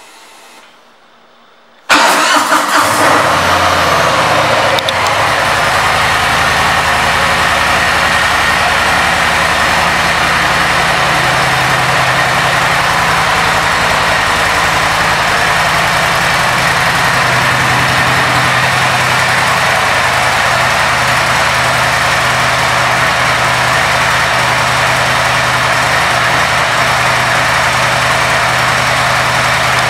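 2018 Harley-Davidson Fat Boy's Milwaukee-Eight V-twin starting about two seconds in, flaring up briefly, then idling steadily.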